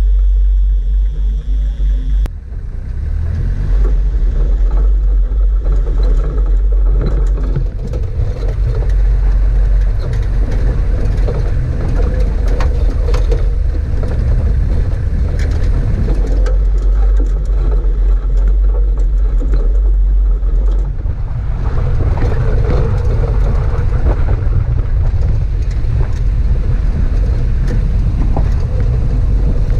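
A Toyota four-wheel drive driving over a rough lava-field dirt track, heard from a camera mounted outside on the bonnet. A heavy, steady low rumble of wind and road noise is broken by frequent knocks and rattles as the vehicle jolts over the rocks.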